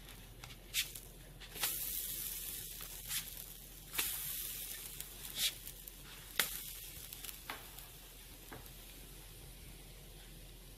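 Pancakes sizzling in a hot nonstick skillet as they are flipped with a silicone spatula. Several sharp taps of the spatula against the pan stand out over the sizzle, which swells after a flip about two seconds in and again around four seconds, then settles.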